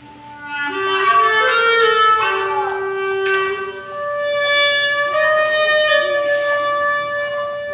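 Solo clarinet playing a slow melody live: it comes in about half a second in, climbs through several notes, and holds one long note through the second half.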